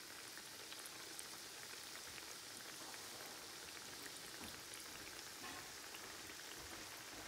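Cake donuts deep-frying in shallow oil in a stainless steel frying pan: a faint, steady sizzle dotted with many small crackles and pops from the oil bubbling around the dough.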